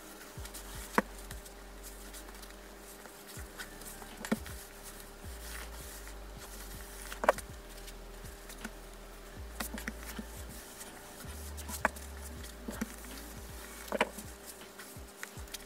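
Fabric strips being laid out and smoothed by hand on a padded pressing mat: a few sharp taps and soft rustles every two or three seconds over a faint steady hum.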